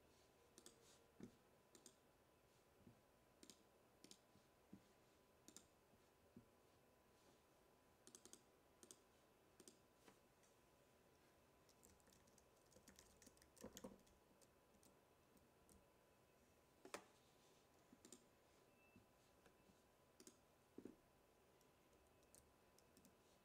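Faint, irregular clicking of a computer mouse and keyboard, with a small flurry about 14 seconds in and one sharper click about 17 seconds in.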